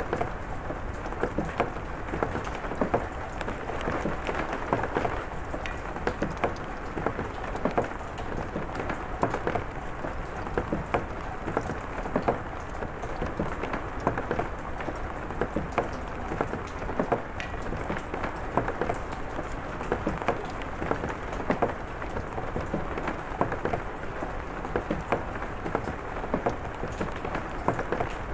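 Steady rain falling, with many individual drops pattering sharply on a surface.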